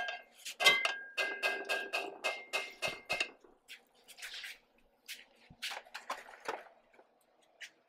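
A wire strainer scoop of fried steaks knocked repeatedly against the rim of a cast iron Dutch oven to shake off the frying oil. It gives a run of ringing metal clanks, about three a second, for the first three seconds or so. Softer, scattered clicks and taps follow.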